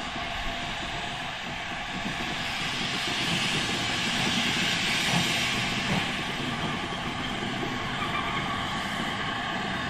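GWR Saint class 4-6-0 steam locomotive moving slowly with steam hissing from its cylinder drain cocks, a steady hiss that swells about halfway through.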